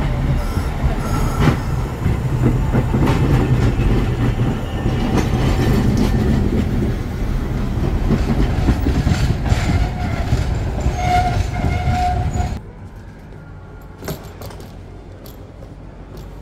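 Steady, loud cabin noise of a DHC-8 Q400 turboprop airliner taxiing after landing: its engines and propellers hum low under rattles and clicks. Near the end it cuts out suddenly to a much quieter background with a few clicks.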